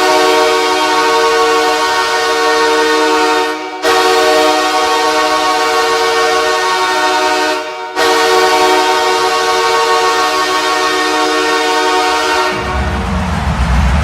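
The Los Angeles Kings' goal horn sounding three long blasts of about four seconds each, a steady chord of several pitches, with a brief break between blasts. Near the end the goal song comes in with a deep beat.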